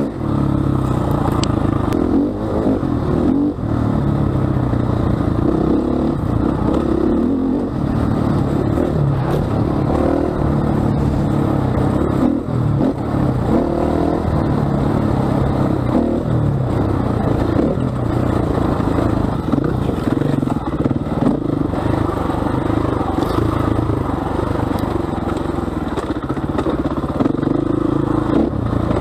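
KTM 500 EXC single-cylinder four-stroke enduro engine running as the bike is ridden along a dirt trail. The engine note rises and falls with the throttle, and there are occasional knocks from the bike over the ground.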